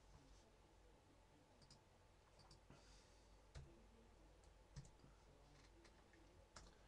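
Near silence with a handful of faint, scattered clicks from a computer mouse and keyboard.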